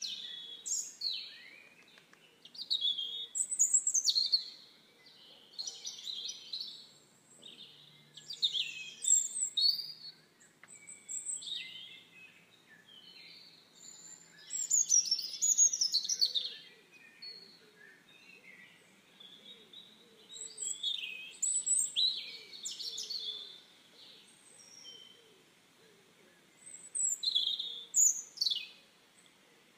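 Small birds chirping and calling in bursts every few seconds: short high chirps and quick whistled sweeps, with brief pauses between.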